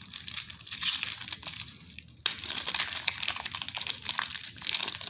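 Foil wrapper of a Panini Prestige football card pack crinkling as it is handled in the hands. The crinkling dies down briefly about two seconds in, then resumes.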